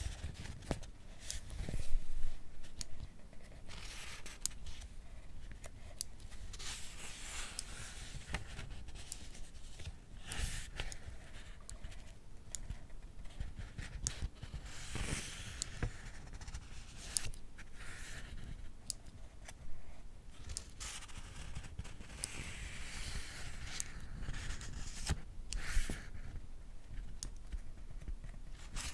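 Pages of a paperback book being turned, soft papery swishes every few seconds, mixed with many short clicks of a mechanical pencil's push button advancing the lead.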